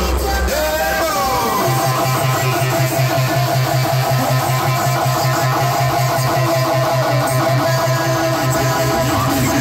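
Loud music played through a paredão, a truck-mounted wall of car-audio speakers: a guitar-like melody over a fast, even pulsing bass that comes in about two seconds in, after a few falling pitch sweeps.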